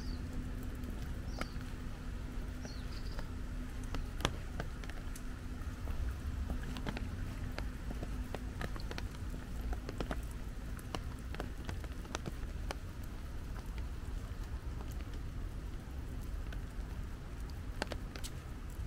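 Light rain pattering, with scattered drops striking close by, over a steady low rumble. A faint steady hum fades out about two-thirds of the way through.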